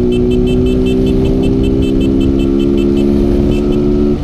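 Honda Fan 160 single-cylinder motorcycle engine with an aftermarket exhaust, running at steady high revs while riding, with wind rumble underneath. Near the end the note drops out for a moment and comes straight back.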